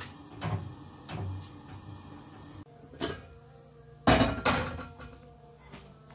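Light knocks of cookware on a gas stove, then, about four seconds in, the lid of a large aluminium pot is lifted off with two loud metallic clanks.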